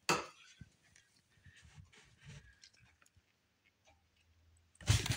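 Groceries handled in a cardboard box: a sharp knock right at the start as an item is set down, then faint rustling and small clicks of packaging, and louder handling noise near the end as the next item is taken out.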